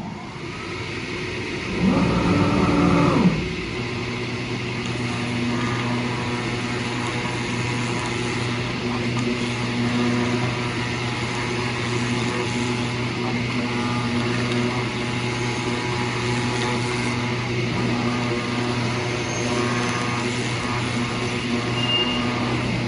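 Digital CNC oscillating-knife cutting machine running as it cuts. The level builds over the first couple of seconds, with a louder, shifting surge about two to three seconds in. It then settles into a steady hum with a high whine.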